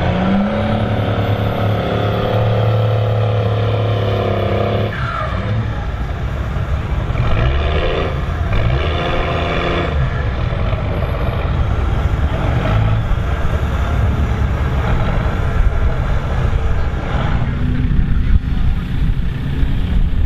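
1997 Dodge Ram 2500's 5.9-litre Cummins inline-six turbo-diesel revving up under heavy throttle and held at high revs for about five seconds while the truck works through soft sand, blowing black smoke. It then drops off suddenly and runs on at lower, uneven revs.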